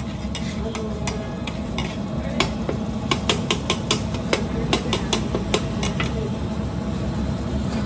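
A metal spatula striking and scraping a large flat griddle (tawa) as food is chopped and turned, in quick irregular clicks that come thickest through the middle, over a steady low rumble and a light frying sizzle.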